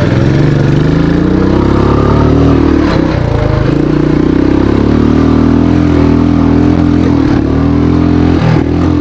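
Motorcycle engine pulling hard while ridden up a grass hill climb. Revs climb over the first couple of seconds, dip briefly about three seconds in, then hold high until they fall away near the end.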